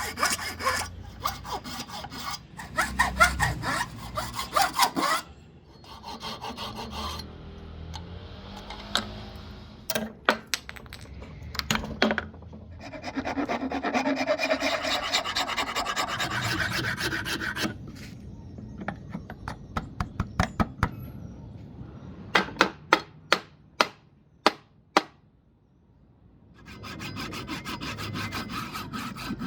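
Hand woodworking on an ebony hammer handle: stretches of rhythmic sawing or rasping strokes, a longer stretch of steady scraping, and several runs of sharp taps.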